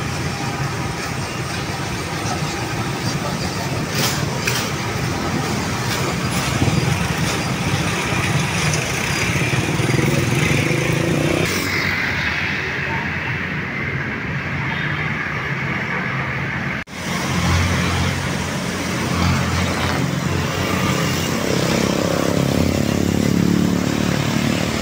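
Busy road traffic: cars and motorcycles running and passing, a continuous engine and tyre noise, with a sudden brief break about two-thirds of the way through.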